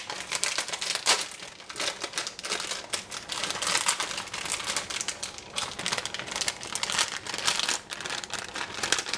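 Plastic instant-noodle packet crinkling as it is handled and opened and the dried noodles are tipped out of it, an irregular run of crackles.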